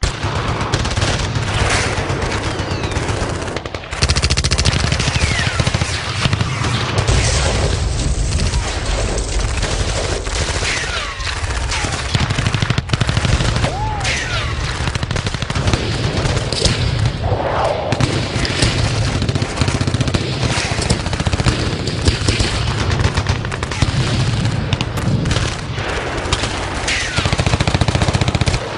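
Dubbed battle sound effects: sustained rapid automatic-rifle gunfire in dense, overlapping bursts, louder from about four seconds in, with a few short whistling glides among the shots.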